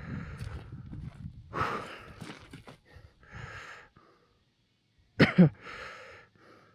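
A man breathing hard and audibly, a run of heavy breaths, with a short voiced grunt a little over five seconds in.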